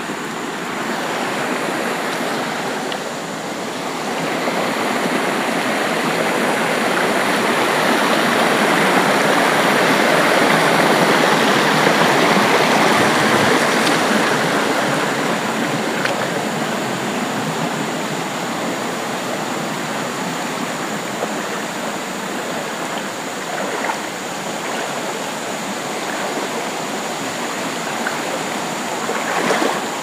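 Steady roar of rushing water from a rocky forest stream, swelling in the middle and easing off again; the sound is taken as a sign that the waterfall is close.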